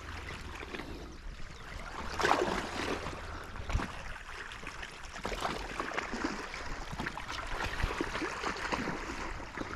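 Sea water lapping and trickling, with irregular small splashes and a low steady rumble underneath.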